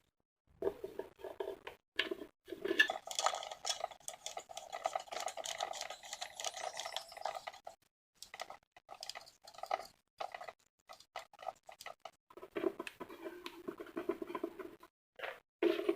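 Irregular clicking, scraping and clattering of small fan parts being handled and fitted together by hand, in spells with short pauses.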